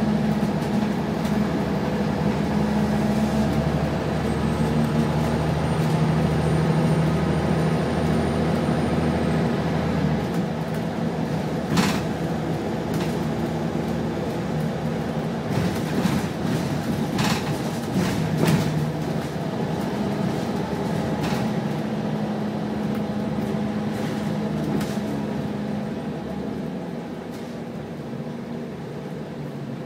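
A Wright Solar-bodied Scania single-deck bus driving, heard from inside the passenger saloon: a steady engine and drivetrain hum, with body rattles and a few sharp knocks in the middle. The sound eases and grows quieter near the end as the bus slows.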